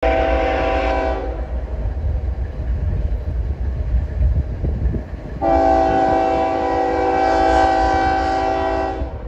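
Approaching freight locomotive's air horn sounding two blasts of a multi-note chord, as for a grade crossing: a short one that stops about a second in, then a long one from about halfway to near the end. A steady low rumble runs beneath.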